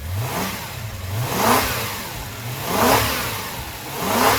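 Toyota 1UZ-FE V8 engine given about four quick throttle blips, each rev rising and falling back to idle. It revs cleanly, firing on all cylinders with no misfire after fuel-system work.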